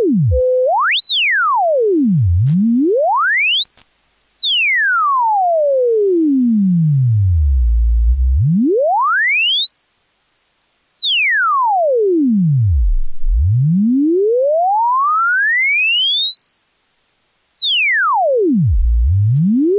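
Solid-state Brüel & Kjær 1022 beat frequency oscillator putting out a single pure sine tone while its frequency dial is swept by hand. The pitch glides up and down four times between a deep low hum and a very high whistle, quickly at first and then in slower sweeps of several seconds each.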